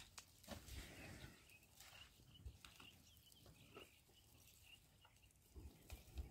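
Faint bush ambience: scattered short bird chirps, with a few soft low thumps.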